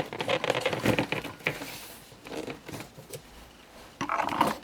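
Toy packaging being handled: cardboard and plastic rustling, with quick clicks and taps as a boxed figure is worked out of its tray. There is a burst of rustling at the start, a quieter stretch, and more rustling near the end.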